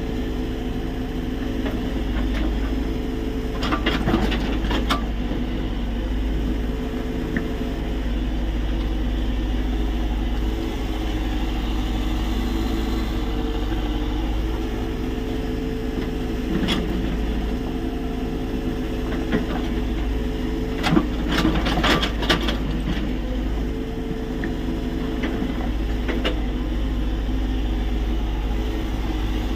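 Tata Hitachi EX70 excavator's diesel engine running steadily while digging, with two brief clusters of clanks, about four seconds in and again about twenty-one seconds in.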